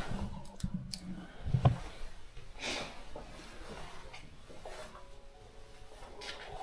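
A few dull thumps and some rustling, the loudest thump about a second and a half in. From about five seconds, faint held music tones come in.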